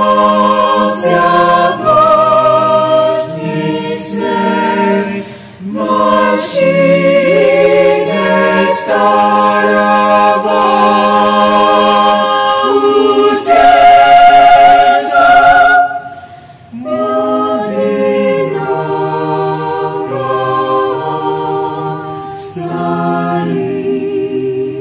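Mixed chamber choir singing a slow piece in several parts, holding chords with vibrato. The sound swells to its loudest a little past halfway, breaks off briefly, then carries on more softly.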